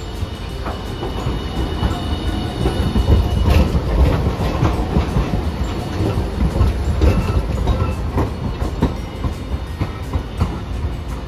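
Hiroden Green Mover LEX low-floor tram rolling into the stop and slowing down, with a low rumble and repeated clicks of its wheels on the rails. The sound is loudest as it passes close by, a few seconds in, then eases as the tram draws to a halt.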